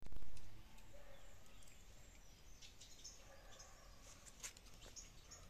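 Faint outdoor garden ambience with a few short, high bird chirps scattered through it, after a brief low rumble at the very start.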